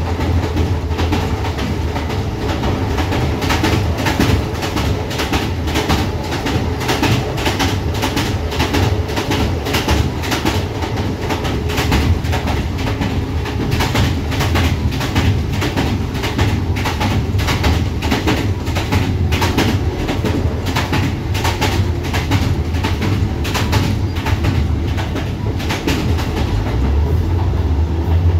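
Passenger train running along the line, heard from inside the carriage vestibule: a steady low rumble with frequent sharp rattling clicks.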